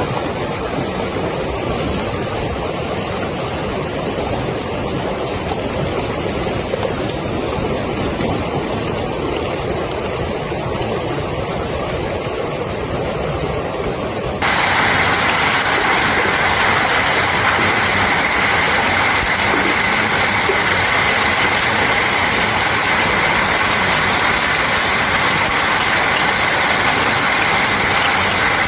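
Hail and heavy rain falling in a steady, dense hiss. About halfway through the sound cuts abruptly to a louder, brighter downpour.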